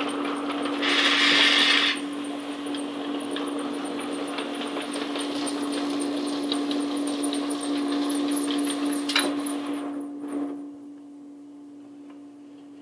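Powered roller conveyor running: rolling noise with small clicks as a pallet fixture rides the rollers, over a steady hum. A brief loud hiss comes about a second in. The rolling noise falls away about ten seconds in, leaving the hum.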